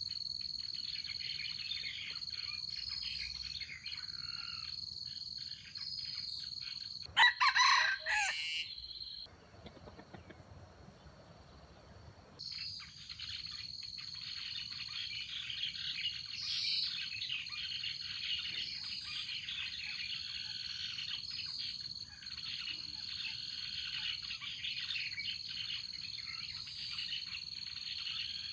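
Many birds chirping over a steady high-pitched insect drone, with a jungle fowl crowing loudly once about seven seconds in. Just after the crow the sound drops to a faint hiss for about three seconds, then the birdsong and drone return.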